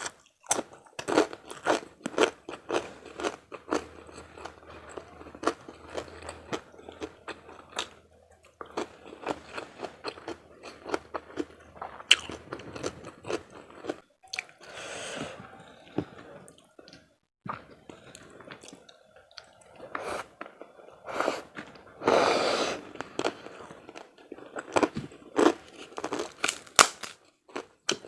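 Close-up chewing and crunching of a mouthful of karedok raw vegetable salad and kerupuk crackers: many sharp, irregular crunches, with a couple of longer crunching stretches midway and about three-quarters through.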